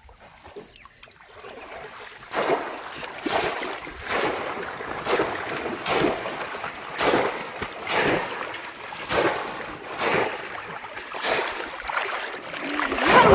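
Rhythmic splashing in shallow river water, about one splash a second, starting about two seconds in.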